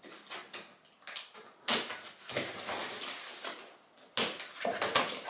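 Cardboard box being pulled open by hand, the cardboard tearing and scraping in several rough bursts, the strongest starting just under two seconds in and again about four seconds in.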